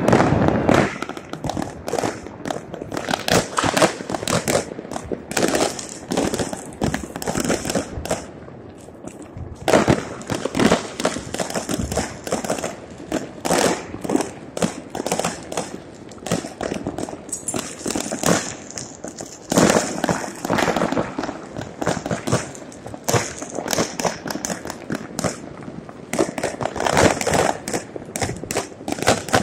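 Many fireworks and firecrackers going off at once, a dense, unbroken run of bangs and crackling, thinning briefly about eight seconds in before picking up again.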